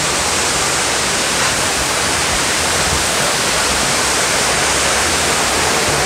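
Waterfall: falling water making a steady, even rushing hiss.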